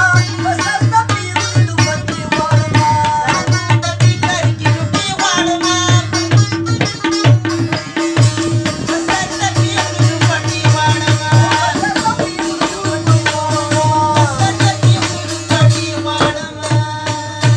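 Folk music played on tabla and a long-necked plucked lute, with a man's voice singing the melody at times. The tabla keeps a steady, repeating rhythm under the melody.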